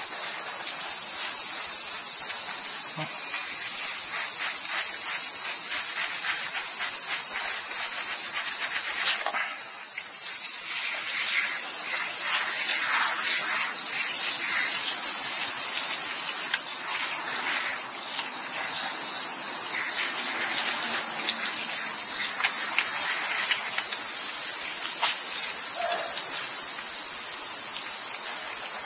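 Steady high-pitched insect chorus, with water from a portable shower spraying and splashing on a tanuki's wet fur, strongest through the middle stretch.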